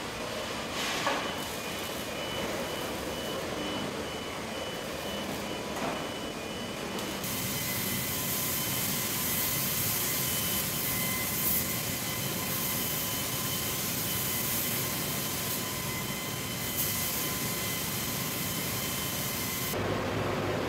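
Car assembly plant factory-floor ambience: steady machinery noise with a repeating electronic beep. About seven seconds in it changes abruptly to a louder, hissier machine noise with steady whine-like tones.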